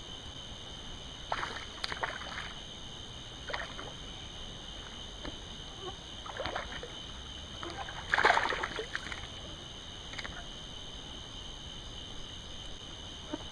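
A hooked bass splashing at the water's surface as it is reeled in and landed: a handful of short, irregular splashes, the biggest about eight seconds in, over a steady high-pitched drone.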